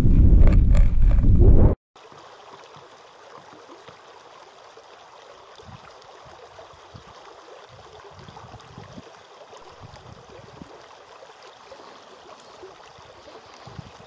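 Wind buffeting the microphone with a loud low rumble that cuts off about two seconds in. Then a shallow stream runs steadily over rocks.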